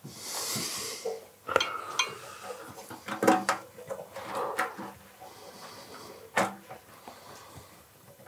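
Scattered metal clinks and knocks of tools and parts being handled while a moped's fuel tank is fitted onto the frame, with a short hiss in the first second.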